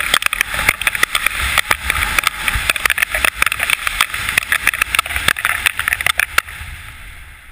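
Wind rushing and buffeting hard over the camera microphone as a parachute canopy swoops in fast to land, with sharp crackles from the gusts. The rush fades near the end as the canopy slows over the grass.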